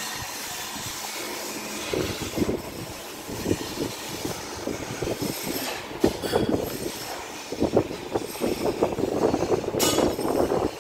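Steel punch and drift being struck and worked against the casing of a twin-lobe compressor: an irregular, rapid run of metal-on-metal knocks and rattles starting about two seconds in.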